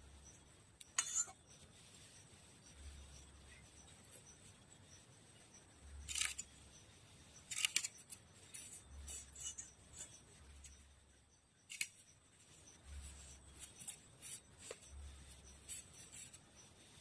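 Irregular snipping and scraping of a hand tool cutting material, with a few sharper strokes standing out.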